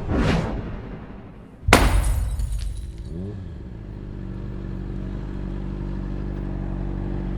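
A whoosh, then a sharp crash with a glass-shattering ring, likely an intro sound effect. From about three and a half seconds a motorcycle engine runs steadily at low revs.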